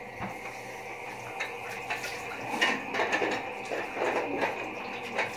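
Light clinks and clatter of a razor against a sink, with water running and a steady low hum underneath.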